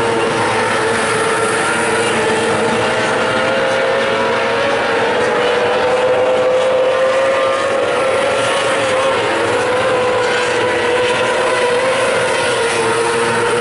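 Several Formula 500 winged speedway cars race around a dirt oval with their engines running flat out, a steady high-pitched drone. The pitch swells slightly around the middle and eases back down as the pack passes.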